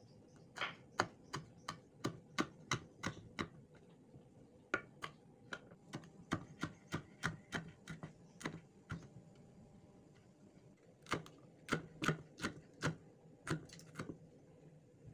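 Knife chopping small red chillies on a wooden cutting board: sharp clicks of the blade striking the board, about three a second, in three runs with two short pauses between them.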